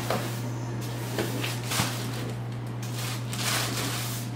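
Kitchen handling noises over a steady low hum: a few brief scrapes and rustles, with a longer hissing scrape a little past the middle.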